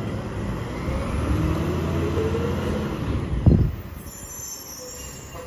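Mack LR garbage truck driving off, its engine running with a rising pitch as it accelerates. A single loud thump comes about three and a half seconds in, after which the truck sounds much quieter.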